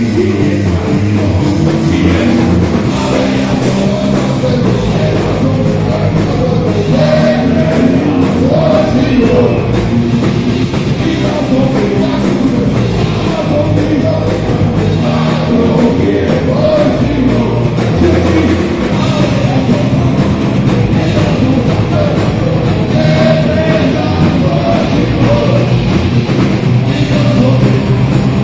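Live rock band playing loud: electric guitars, bass guitar and drum kit, with a sung vocal over them.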